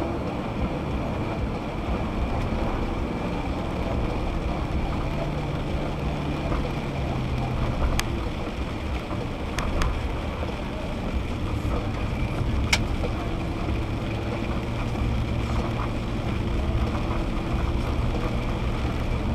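Car driving on a wet road, heard from inside the cabin: steady engine hum and road noise, with a few sharp clicks about eight, ten and thirteen seconds in.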